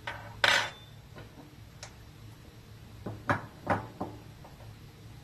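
Sharp clicks and taps of a Sig P365 pistol slide and a bench vise being worked while the extractor's coil pin is removed. The loudest click comes about half a second in, then a few lighter ones and a quick cluster of four or five a few seconds later.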